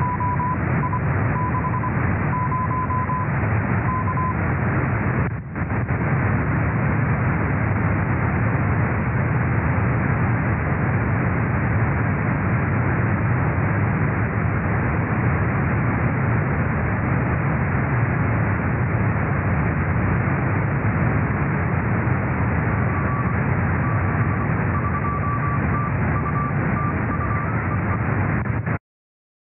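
Morse code (CW) received from the RS-44 amateur satellite's 70 cm downlink through a software-defined radio: an on-off keyed tone of dots and dashes near 1 kHz over steady receiver hiss. The keying runs for the first four seconds, then comes back slightly higher in pitch near the end, and the audio cuts off abruptly.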